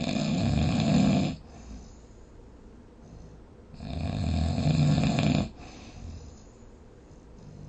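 A person snoring: two long snores about four seconds apart, each lasting a second and a half or so, with quieter breathing between them.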